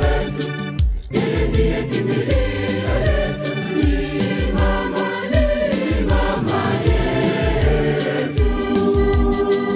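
Youth choir singing a Swahili hymn to Mary in several voices over a backing with a steady low beat.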